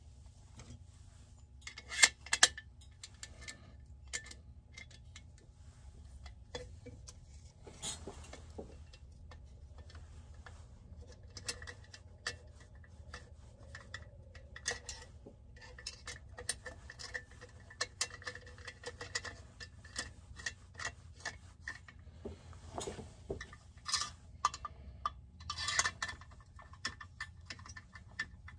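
Small metal chainsaw parts and hand tools clicking and clinking irregularly as a Holzfforma 372XP chainsaw is assembled by hand, with its muffler and bolts being fitted. Two sharp clicks about two seconds in are the loudest, and a steady low hum runs underneath.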